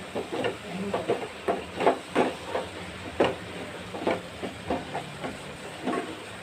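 A spoon stirring a vegetable-and-spice mixture in a cooking pan, scraping and knocking against the pan in irregular strokes about twice a second, over a low steady hiss.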